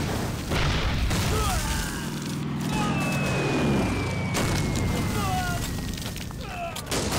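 Battle-scene sound effects of an aerial bombing: bombs exploding, with a sudden blast about half a second in and another near the end. In the middle, a falling bomb whistle slides slowly down in pitch over the steady drone of aircraft engines, with men shouting.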